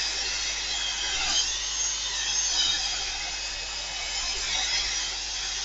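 Embossing heat tool running, a steady blowing hiss, drying wet acrylic paint on a gelli plate print.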